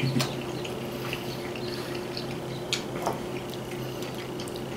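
People eating pasta and meatballs with forks: soft wet mouth sounds of chewing and a few light clicks of forks against bowls, over a steady low hum.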